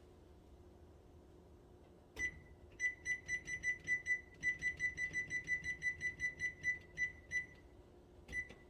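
Electronic oven timer beeping with one high beep, then a quick, even run of about four or five beeps a second for several seconds, then a single beep near the end.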